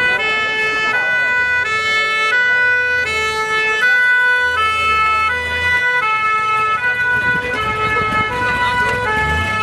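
Two-tone hi-lo siren of a vintage Polish fire-service (Straż) car, switching steadily between a higher and a lower pitch about every 0.7 seconds.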